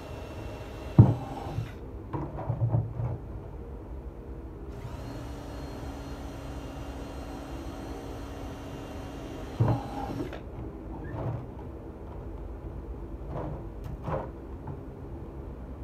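Cordless drill running at slow speed, boring holes into a plastic food-grade barrel, in two stretches of several seconds. Between the stretches come hollow knocks and bumps from the plastic barrel, the loudest about a second in.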